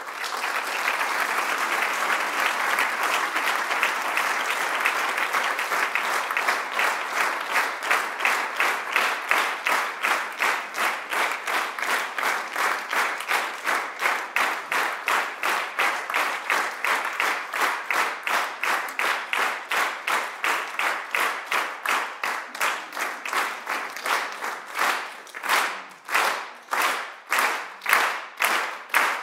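Audience applauding. The clapping starts as a dense crowd of hand claps and gradually falls into unison rhythmic clapping, about two claps a second, which is most distinct near the end.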